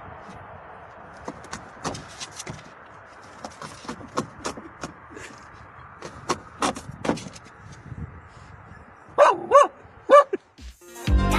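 Small short-haired dog gives three short, high yelps near the end, each rising and falling in pitch. Before them there is a steady hiss with scattered light clicks.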